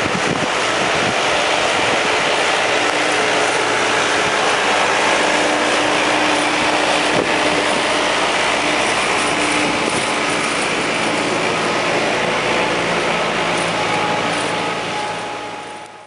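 Tractor engine running steadily as the tractor pushes snow with a front plough, over a loud, even rushing noise.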